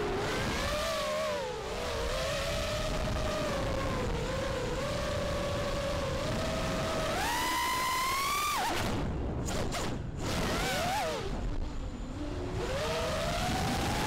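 An FPV quadcopter's motors and propellers whining, heard from its onboard camera, the pitch rising and falling with the throttle over a rush of wind on the microphone. A little past halfway the whine climbs steeply, then drops abruptly as the throttle is cut, dipping out briefly before it spools back up and rises again near the end.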